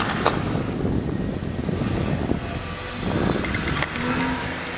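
A car pulling away from the curb: engine running with a low rumble, and two sharp knocks right at the start.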